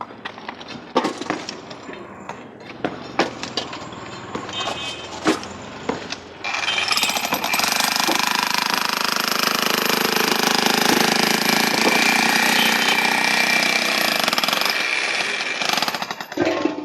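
Scattered knocks and clinks, then about six seconds in a demolition hammer (jackhammer) starts hammering continuously into a concrete pillar for about ten seconds, stopping shortly before the end.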